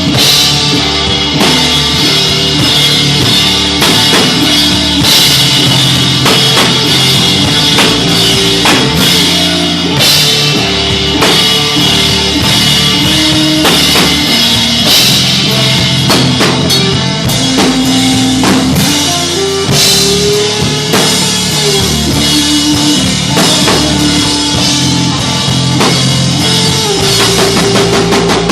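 Stoner rock band playing live and loud: a drum kit hitting steadily under distorted guitar and bass, with long held notes that slide in pitch here and there.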